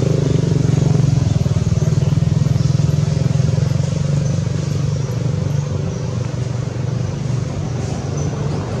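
A motor vehicle's engine running steadily with a low hum, loudest for the first few seconds and then easing off a little.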